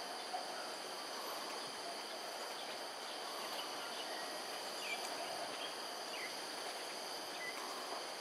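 Steady insect chorus of several high, even tones, with a few short chirps over it in the middle.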